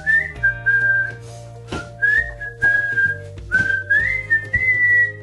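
A man whistling a simple tune with his lips, in three short phrases with small upward slides in pitch, over light background music.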